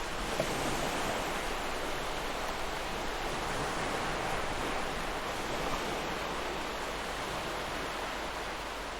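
Ocean waves washing on the shore in a steady, unbroken hiss of surf, swelling slightly about half a second in.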